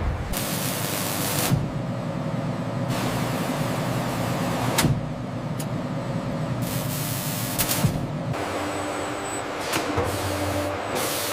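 Factory machinery sounds: repeated bursts of hissing, like air or spray jets, each lasting a second or so, over a steady mechanical hum, with several sharp clanks or clicks along the way.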